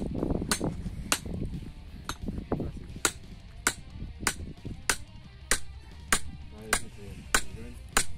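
Hammer tapping a metal wedge into a piece of firewood to split it, sharp metallic strikes at a steady pace of about one and a half a second.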